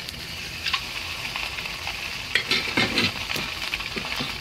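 Fish sizzling in a hot frying pan with no added oil, cooking in its own fat: a steady hiss that sets in at once, with scattered crackles and a cluster of louder pops a little past the middle.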